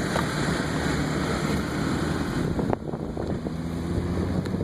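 Car being driven, a steady rumble of road and tyre noise with engine hum heard from inside the cabin. A single sharp knock comes a little past halfway.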